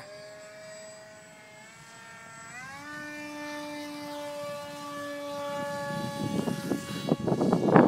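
Electric RC model airplane motor and propeller whining overhead, its pitch climbing about two seconds in as the throttle opens, then holding steady; just before, it was taken for the sound of a dying battery. A rough rustling noise on the microphone builds from about six seconds in and is loudest near the end.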